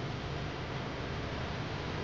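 Steady, even hiss with a low hum underneath, unchanging throughout.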